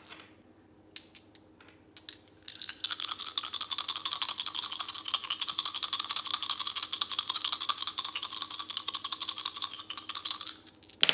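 A deck of cards being shuffled by hand: a fast, dense run of card flapping and clicking that lasts about eight seconds, followed near the end by a short louder burst.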